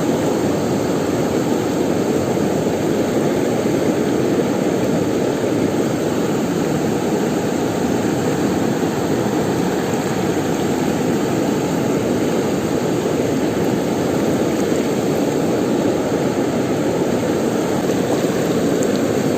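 Steady rush of fast-flowing river water, an even noise that holds at the same level throughout.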